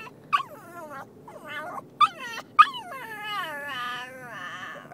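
Dog whining and yelping in distress: a few short, sharp yelps, then one long wavering whine that slides down in pitch, the anxious 'crying' of a dog upset at being taken to the groomer.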